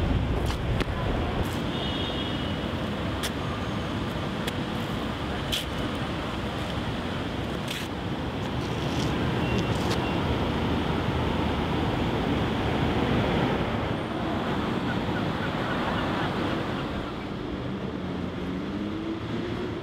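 Steady rushing noise with scattered faint clicks; a low wavering tone comes in near the end.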